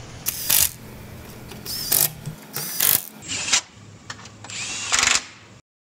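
About five short bursts of mechanical tool noise over a steady low hum, cut off abruptly near the end.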